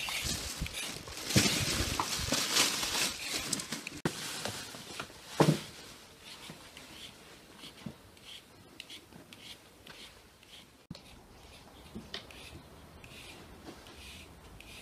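Plastic hand-held vegetable peeler scraping the skin off carrots, a rough scratchy rasp in uneven strokes for the first few seconds. About five seconds in there is a short dull bump, then only faint scattered clicks of handling.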